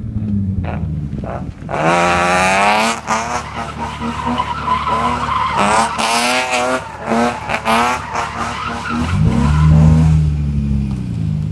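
BMW E36 drift car's tyres squealing in one long, wavering squeal as the car slides through a sustained drift, over its straight-six engine held at high revs. The engine note comes up loudest near the end as the squeal stops.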